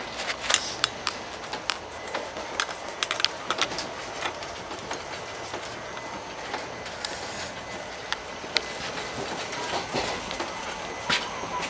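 Train running on the rails: a steady rumble with many irregular sharp clicks and clatters, densest in the first few seconds.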